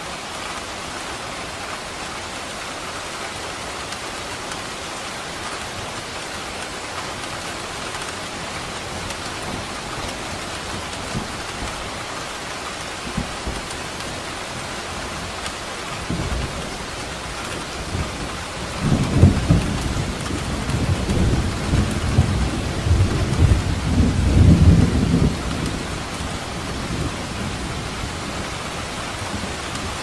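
Steady rain, with a long roll of thunder that builds about halfway through, is loudest a few seconds later and dies away a few seconds before the end.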